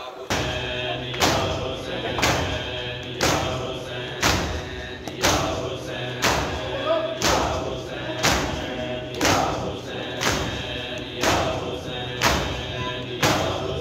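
A group of mourners doing matam: many hands striking bare chests together, about one heavy slap a second, in time with a noha chanted by male voices.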